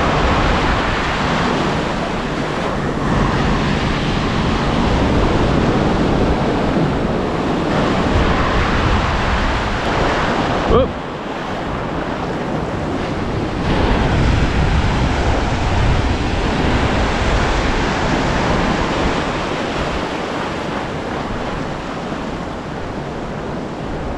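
Shallow surf breaking and washing in, mixed with wind rushing across the microphone. The rush dips briefly a little before halfway through.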